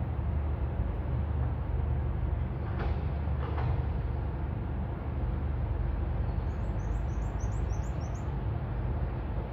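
Steady low outdoor rumble, with two brief scuffs about three seconds in and, near the end, a quick run of about eight short high-pitched chirps from a small bird.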